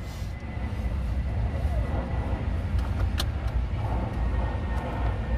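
Car engine idling, a steady low rumble heard from inside the cabin. About three seconds in there is a single sharp click of a seatbelt being buckled in the back seat.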